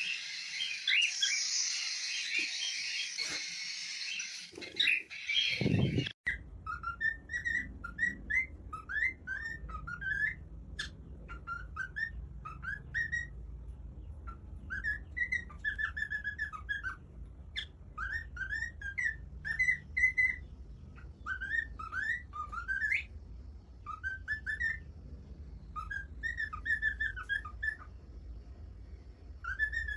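Pet parrot whistling short rising and falling chirps in quick clusters. It is preceded by about six seconds of dense, shrill, high-pitched noise that stops abruptly.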